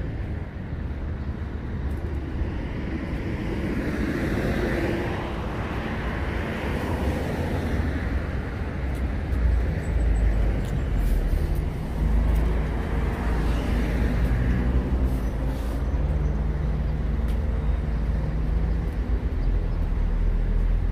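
Low, steady engine rumble and road noise of a motor vehicle, with two broad swells of passing-traffic noise.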